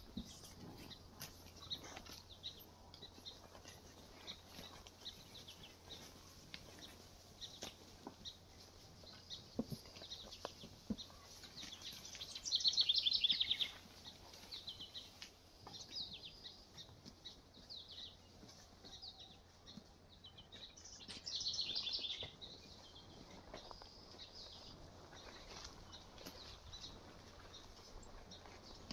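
Songbirds singing and chirping, with two louder rapid trilled song phrases, about twelve seconds in and again about twenty-one seconds in, over a low steady hiss and a few faint clicks.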